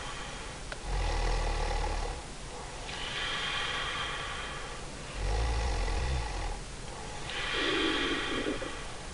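A woman snoring. Twice, a low rattling snore is followed by a long hissing breath, in an even rhythm about every four seconds.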